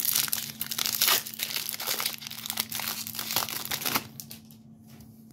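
Trading card pack wrapper being torn open and crinkled, a dense crackling that goes on for about four seconds and then stops.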